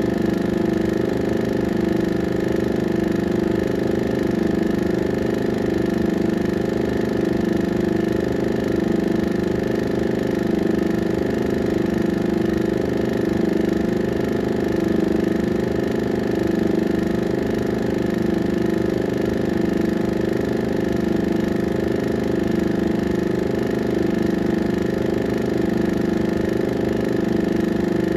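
16mm film projector running, a steady machine hum with a fast, even clatter underneath that never changes.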